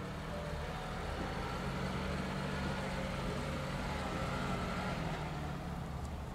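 Lada Niva 4x4 driving slowly past on a dirt farm track, its engine running steadily. The sound grows louder through the middle as the car comes closest, then eases off a little near the end.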